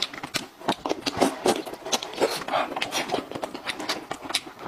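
Close-miked mouth sounds of a person eating: wet chewing and lip-smacking, a quick irregular run of clicks and smacks.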